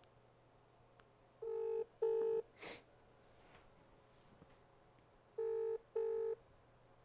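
Telephone ringback tone from a call ringing out: two British-style double rings, each a pair of short low beeps, about four seconds apart. A brief burst of noise comes just after the first double ring.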